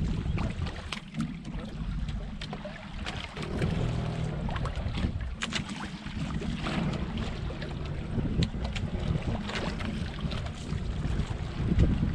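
Wind buffeting the microphone and water sloshing around a small outrigger fishing boat, a steady low rumble, with scattered sharp clicks and knocks throughout.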